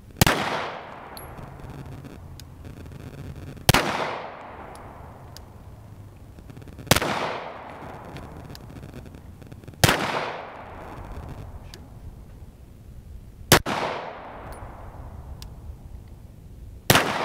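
Springfield XDm 5.25 pistol fired six times in slow, aimed fire, about one shot every three seconds. Each shot is followed by a fading echo.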